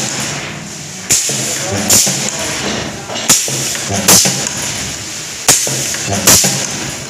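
Pneumatic MCB wire welding and cutting machine cycling automatically: its air cylinders fire with a sharp clack and a hiss of exhausting air, in pairs about a second apart, three times over, as it cuts short copper wire lengths.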